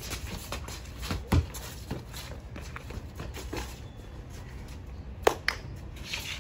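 Basketball dribbled on a stamped-concrete driveway: a few bounces about a second in, one a heavy thud, with sneaker scuffs and steps on the concrete. Two sharp slaps a little past five seconds are the loudest sounds.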